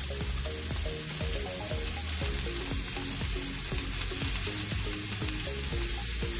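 Steaks searing in a hot oiled skillet: a steady frying sizzle.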